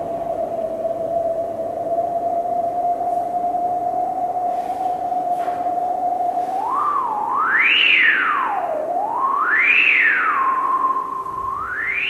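Moog Mother-32 semi-modular analog synthesizer sounding one held tone. After about six and a half seconds its pitch sweeps up and down in wide glides twice, holds on a higher note, then rises steeply at the end as the knobs are turned.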